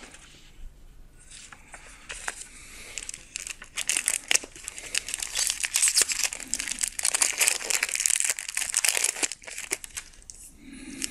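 Plastic booster-pack wrapper crinkling and tearing as it is pulled open by hand. A few light crackles come first, then dense crinkling from about four to nine seconds in.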